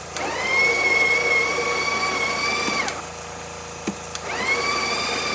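Breville Barista Express's built-in burr grinder motor running with a steady whine, rising in pitch as it spins up. It stops about three seconds in and starts again just over a second later.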